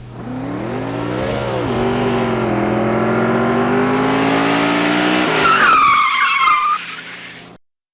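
Car engine revving up and holding high revs, then dropping off as tyres squeal for about a second; the sound fades and cuts off just before the end.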